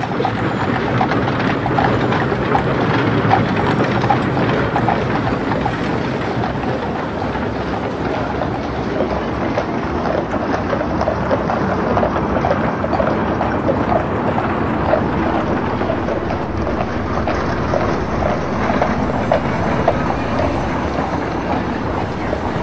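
Street ambience: a steady rumble and clatter of horse-drawn vehicles rolling past.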